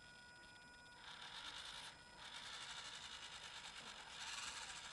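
Losi micro crawler's small electric motor and gears whirring faintly as it crawls, starting about a second in, stopping briefly, then running again and louder near the end.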